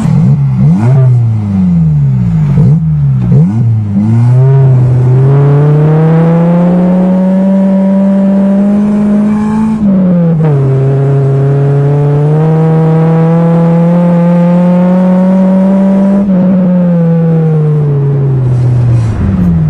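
Nissan 200SX engine being driven hard: the revs swing rapidly up and down for the first few seconds, then climb steadily through a gear. About ten seconds in they drop sharply at a shift, climb again, and fall away near the end before a few quick blips.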